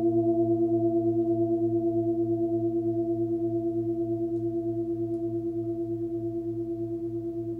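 A 24 cm Nepalese singing bowl tuned to A, with a 111 Hz fundamental, ringing out. Several overtones sound together with a fast, even wobble, and the tone slowly fades.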